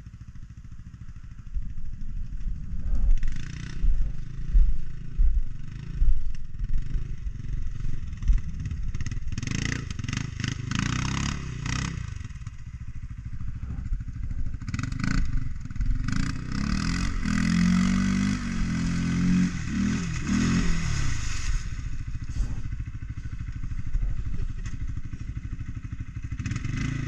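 ATV engine working through deep mud, its revs surging and falling repeatedly, with a stretch of rising and falling revving about two-thirds of the way through.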